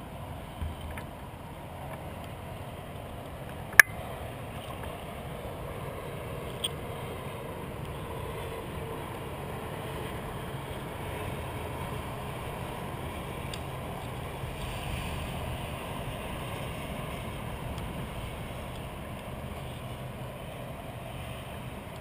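Steady wash of water against and along a plastic kayak's hull, picked up by a camera mounted on the bow. A single sharp knock sounds about four seconds in, with two fainter clicks around it.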